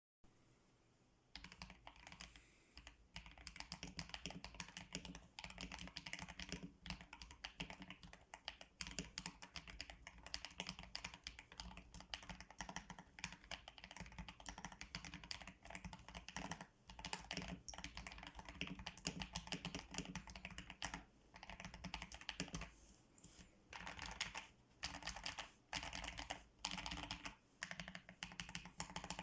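Typing on a Tester68 mechanical keyboard with lubed Akko CS Lavender Purple tactile switches: a steady run of quick keystroke clacks, starting about a second and a half in, with a few short pauses between bursts.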